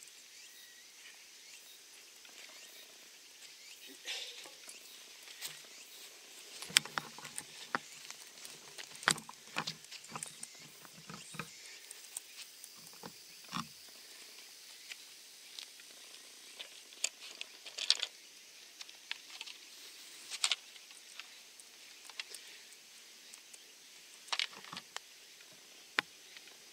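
Faint outdoor ambience with a steady high insect drone, broken by scattered soft clicks and knocks, most of them in the first half.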